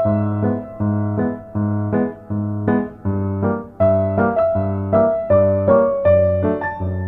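Background music: an electric piano or keyboard plays a steady pattern of chords, about two a second, over a repeating bass line.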